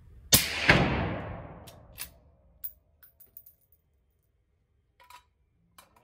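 A single suppressed .308 rifle shot through a Thunder Beast 338SR suppressor: two sharp cracks about a third of a second apart, then a ringing tail that dies away over about a second. A few light clicks and taps follow. At the shooter's ear it measured about 124 dB.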